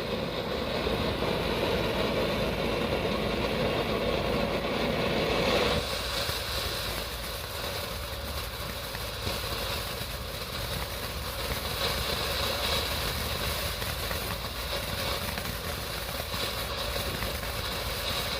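Ground fountain firework burning with a steady rushing hiss. About six seconds in the fuller rush drops away, leaving a thinner hiss with scattered crackles.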